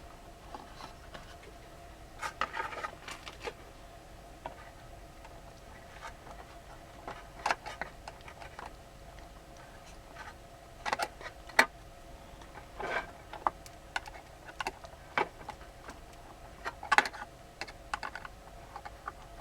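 Small metal clicks and taps, irregular and scattered, as a nut is worked back onto the bolt that holds a component to its heat sink. A few louder clicks stand out through the middle and near the end.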